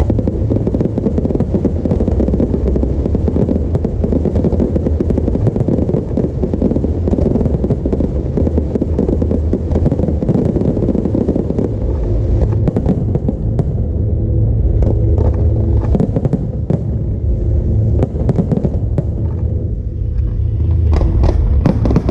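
Fireworks show: dense booming bursts merging into a continuous rumble, with sharp crackling pops that grow more distinct in the second half.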